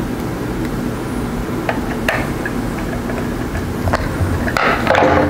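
Screwdriver turning the screws that hold the top cover of a TDGC2-2 variac: a few light clicks and scrapes, then a louder scraping rustle near the end, over a steady background hum.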